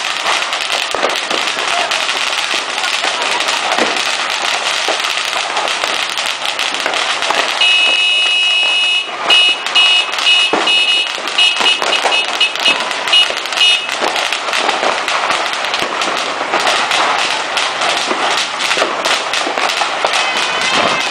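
Dense, continuous crackle of firecrackers and fireworks going off, with many sharp pops. About a third of the way in, a shrill high tone holds for over a second, then sounds as a run of quick beeps for several seconds.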